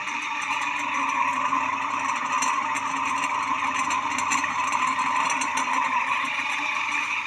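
Alaska decorative ceiling fan running, a steady motor hum with a whir.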